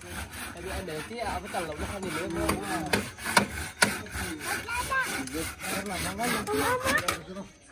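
Handsaw cutting through wood in quick back-and-forth strokes, stopping near the end.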